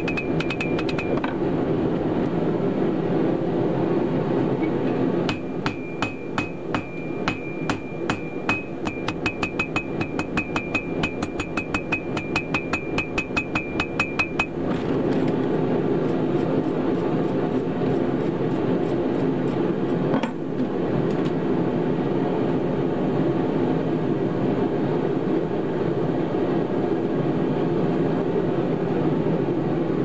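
Hand hammer striking a hot steel cable on a steel anvil, each blow ringing: a few blows right at the start, then a fast run of blows from about five seconds in that stops about halfway through. A steady background sound, tagged as music, runs under it all.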